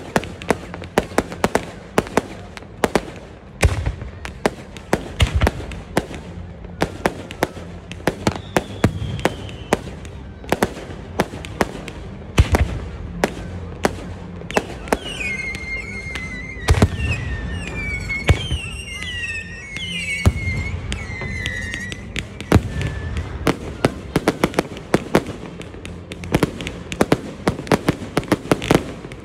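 Fireworks display: a rapid, unbroken run of sharp bangs and crackles from bursting shells, with deep booms among them. About halfway through there is a stretch of wavering high whistles lasting several seconds.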